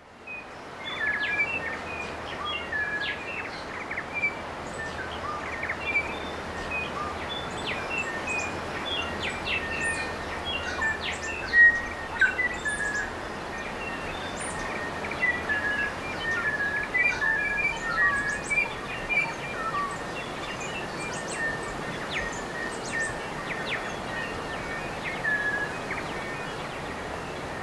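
Dawn chorus of many native forest birds singing and calling at once: a busy, overlapping mix of short chirps, whistles and trills. It fades in at the start, with one louder call near the middle.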